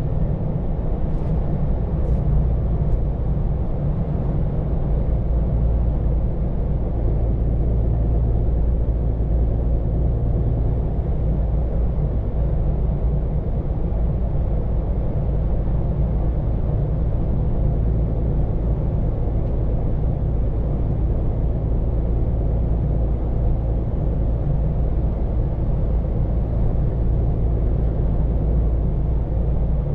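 Scania P410 truck driving at a steady speed, heard from inside the cab: an even low engine drone with road noise. A few light clicks sound in the first few seconds.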